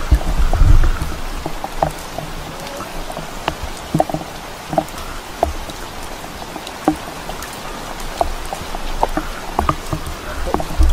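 Steady rain falling in rainforest, with many single drops ticking sharply close to the microphone. A low rumble sounds in the first second.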